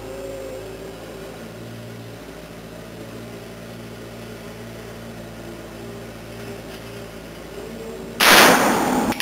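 A steady mechanical hum, then about eight seconds in a single sharp, very loud gunshot from a 7.62x39 AK-47 pistol. The blast trails off over about a second.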